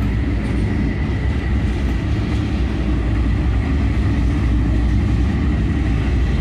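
A pair of GE C44EMi diesel-electric locomotives run close by at low speed while shunting a cut of tank cars. A steady, heavy engine rumble sits over the rolling of the cars' wheels, growing slightly louder in the first moments as the locomotives draw level.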